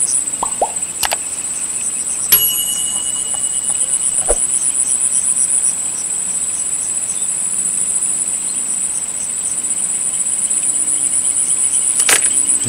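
Insects chirring: a loud, steady, high-pitched trill made of rapid pulses, with a few short clicks.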